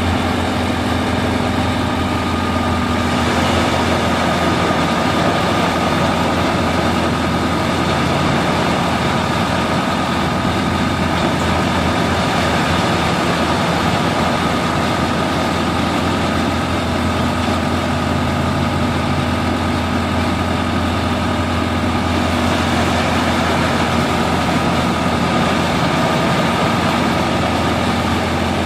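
Forage chopper (chaff cutter) running steadily while green grass is fed into it, a constant machine hum with a thin steady whine above it.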